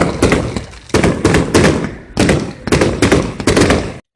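Fireworks going off: clusters of rapid sharp bangs and crackles, a new volley every half second to a second. They stop abruptly just before the end.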